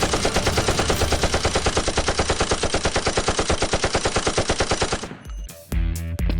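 Sustained automatic gunfire at about a dozen shots a second, a machine-gun sound effect rather than the soft thunk of a foam-dart blaster, cutting off suddenly about five seconds in. Music with low, steady notes comes in near the end.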